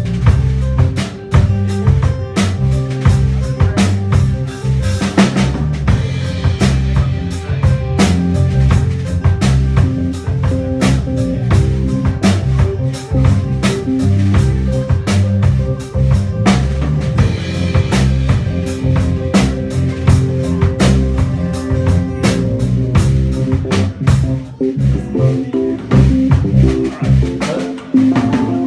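Rock band playing live without vocals: a full drum kit with kick, snare and cymbals driving hard over bass and guitar.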